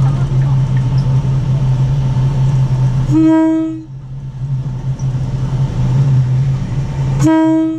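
Train horn sounding two short blasts about four seconds apart, the second near the end, over the steady drone of the train's engine as it crosses a steel truss railway bridge. The blasts warn the people walking on the track ahead.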